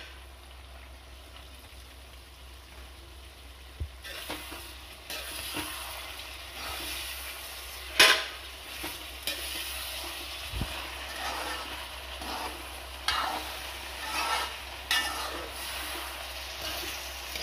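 A metal spoon stirs and scrapes thick chicken curry in an aluminium kadai, over a soft sizzle. About eight seconds in, the spoon strikes the pan rim with one sharp clank.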